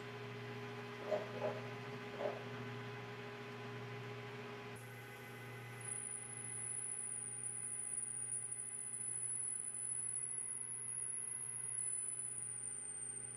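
WMTCNC benchtop metal lathe running with a steady motor hum. A few light knocks come in the first two seconds, and from about six seconds in a thin high-pitched whine joins while the tool cuts the spinning workpiece.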